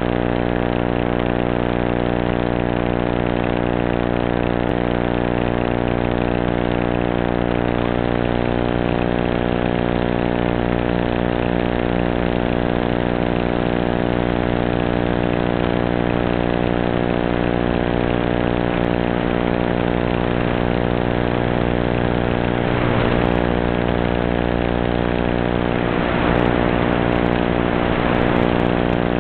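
Steady, harsh electrical buzz of many evenly spaced tones over hiss, not changing in pitch, the noisy audio track of an analog FPV video recording. Brief wavering disturbances come about two-thirds of the way through and again near the end.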